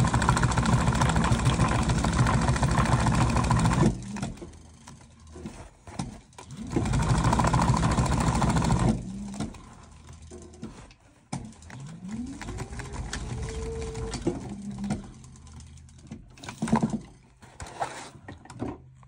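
Techsew 810 post bed industrial sewing machine stitching a patch onto a cap, in two fast runs: one of about four seconds, then another of about two seconds after a short pause. Quieter stretches follow with a rising whine and a few clicks near the end.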